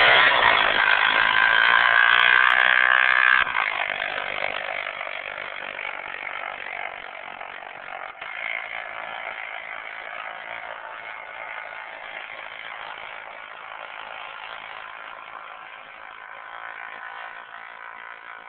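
Yamaha Raptor 660 quad's single-cylinder four-stroke engine pulling hard up a sand dune, loud for the first three seconds or so, then dropping and fading steadily as it climbs away.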